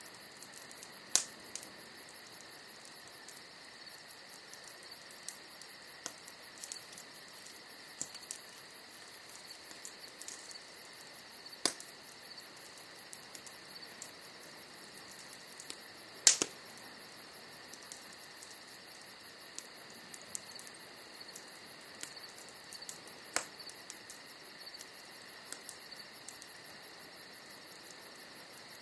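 Wood bonfire burning, with sharp crackling pops now and then, four of them louder, over a steady high chirring of insects.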